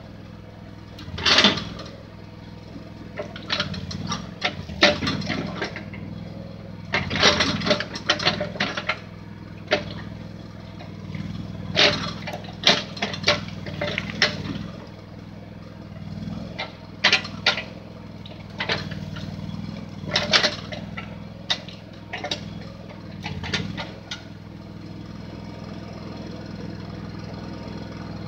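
Backhoe engine running steadily under load while its bucket presses into a brush pile, with frequent sharp snaps and cracks of branches breaking and knocks from the bucket, coming in clusters until near the end, when only the engine is left.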